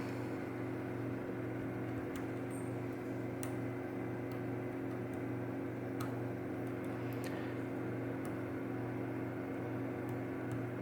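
Faint, scattered light clicks of a lock pick and tension wrench working the pins of a Mul-T-Lock Interactive lock, over a steady low hum.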